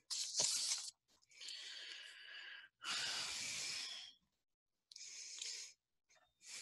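A person's breathy, unvoiced sounds close to a computer microphone, whisper-like breaths in about five short bursts of a second or so. Each burst starts and stops abruptly.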